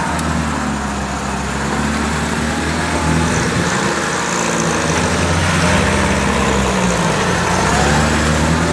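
UAZ-469 off-roader's engine running at fairly steady revs, its pitch shifting a few times and rising briefly near the end, then cutting off suddenly.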